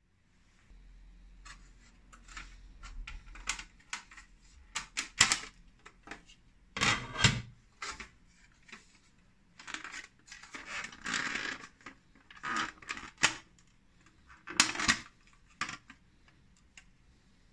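Hard plastic clicking, scraping and rattling in irregular bursts as the casing of a Kaufel BRIO+ emergency exit light is handled and its clear plastic base is unclipped from the body.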